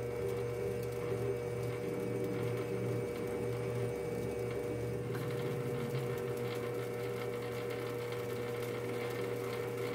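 Metal lathe running steadily while a parting tool cuts off a spinning 12L14 steel stud, a constant motor and drive hum with a steady tone.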